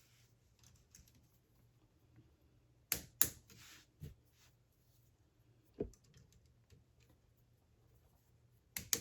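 K'nex plastic pieces clicking and snapping as support arms are fitted onto the model's towers: a few sharp clicks, a pair about three seconds in, single ones after four and six seconds, and another pair near the end.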